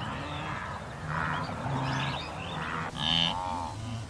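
A series of animal calls, low lowing cries one after another with a louder bending cry about three seconds in.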